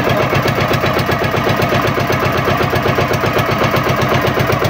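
Engine of a motorized outrigger boat (bangka) running steadily under way, a loud, rapid, even chugging.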